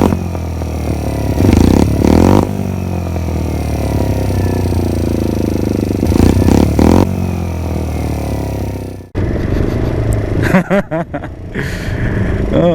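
Motrac M5 mini motorcycle engine running under way, swelling twice as it is revved up and falling in pitch in between as it slows. It cuts off suddenly about nine seconds in, replaced by a different, choppier sound with a brief voice-like sound.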